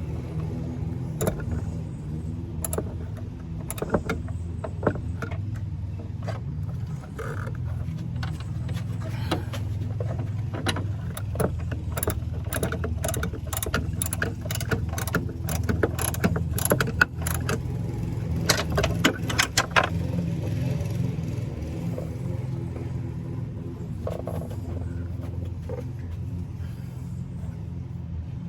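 Irregular metallic clicks and clinks of hand tools and hardware while hood latches are fitted, thickest in the middle, over a steady low rumble.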